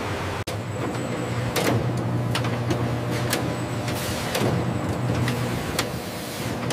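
Factory machinery running with a steady low hum and a sliding whoosh roughly once a second, with a brief dropout about half a second in.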